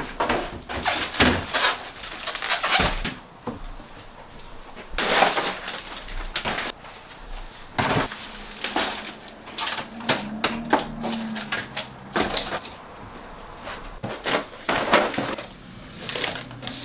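Groceries being handled and unpacked from a plastic crate: an irregular run of knocks, clatter and rustling.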